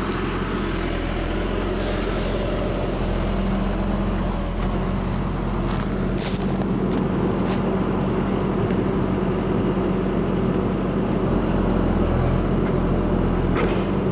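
Backhoe loader's diesel engine running steadily near idle, with a few short knocks along the way.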